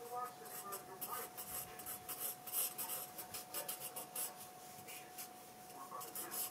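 Graphite pencil scratching across the paper of a spiral-bound sketchpad in quick, irregular sketching strokes.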